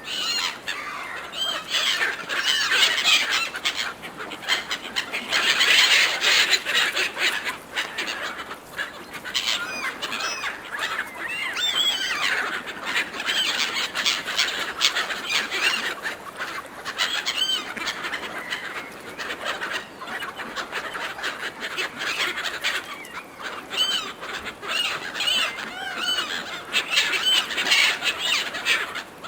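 A flock of gulls calling over one another in a dense chorus of short, arching squawks and cries as they compete for food.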